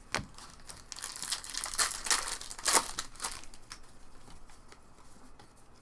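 Wrapper of a Topps baseball card pack being torn open and crinkled: a run of crackling rustles, loudest about two to three seconds in, then dying down to faint handling.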